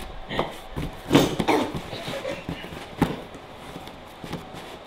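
A hand rummaging in a cardboard box, with scattered knocks and rustles, and a short voice sound about a second in.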